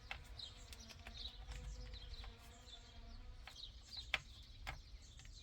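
Faint bird chirps repeating in the background, with a few light clicks from handling parts, the loudest about four seconds in.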